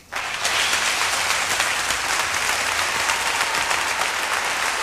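A large audience applauding steadily, a dense patter of many hands clapping that starts abruptly.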